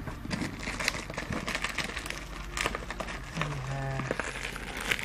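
Shipping packaging crinkling and rustling with irregular crackles as a parcel is handled and unwrapped.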